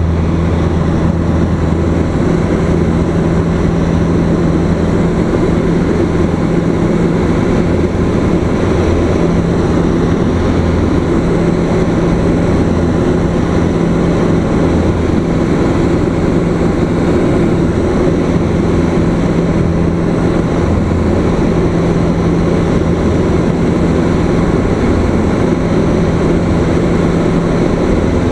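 Single-engine light aircraft's piston engine and propeller running steadily at takeoff power through the takeoff roll and climb-out, heard inside the cockpit as a loud, even drone.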